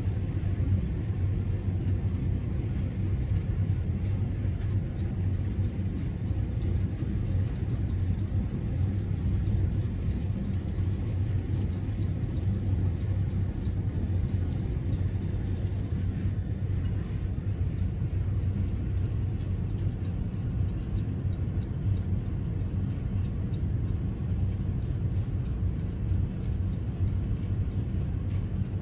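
Seth Thomas Sons & Co. clock movement's deadbeat escapement running, the escape wheel teeth dropping onto the pallets in a steady, even tick, heard faintly over a steady low rumble.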